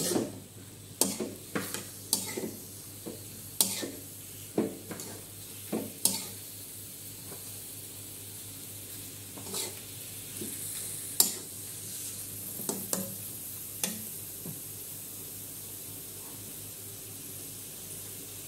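Beef pieces sizzling in a metal wok as a metal spatula stirs them, scraping and knocking against the pan. The knocks come often for the first six seconds or so, then only now and then over a steady sizzle.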